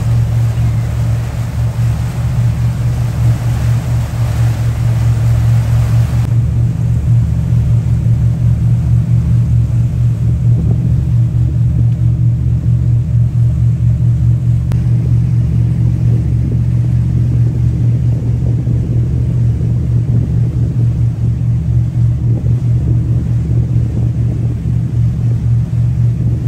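Boat engine running steadily underway, a deep drone with water rushing past the hull; the rushing noise drops away about six seconds in.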